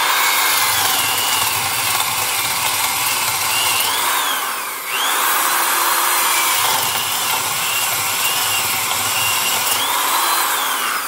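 Drill running at about 1000 RPM as a 1-inch DeWalt spade bit bores two short holes through a block of wood. The motor's whine wavers up and down as the bit bites. It dips briefly about halfway through, between the two holes, and runs down near the end.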